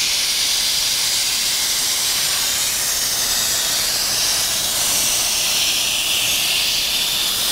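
Steady hiss of hot air blowing from the nozzle of a Miller Weldmaster 112 Extreme hot-air seam welder as its head carriage welds acrylic tape along a seam.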